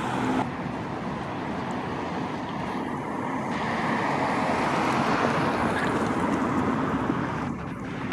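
Road traffic noise: an even rush of passing vehicles that swells to a peak about five seconds in, then drops near the end.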